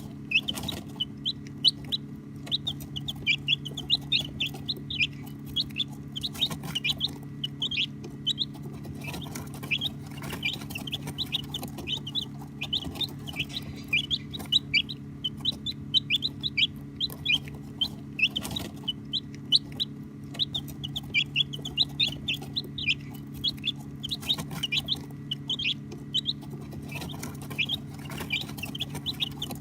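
A group of baby chicks peeping continuously: many short, high chirps several times a second, over a steady low hum.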